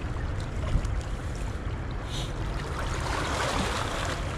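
Shallow seawater sloshing, with wind rumbling on the microphone. There is a single thump just under a second in, and the water noise swells about three seconds in.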